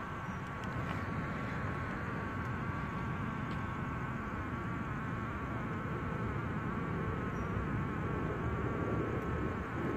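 A steady buzzing hum with a slight waver in pitch, over a low rumble.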